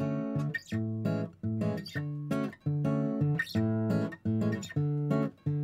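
Background music: guitar playing chords in a steady rhythm, about two chords a second.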